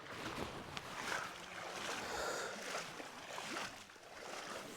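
Floodwater sloshing and splashing in uneven swells, the biggest about two seconds in.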